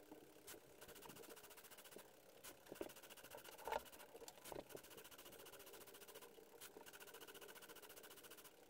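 LEGO Mindstorms EV3 plotter's motors running faintly in a fast, even pattern of tiny ticks, sped up by fast-forwarding. A few louder clicks come through, the loudest a little past the middle, as the pen dabs dots onto the paper.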